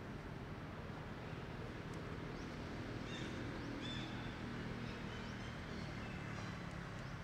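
Outdoor ambience: a steady low hum and hiss, with a few faint, short high chirps from about three seconds in to near the end.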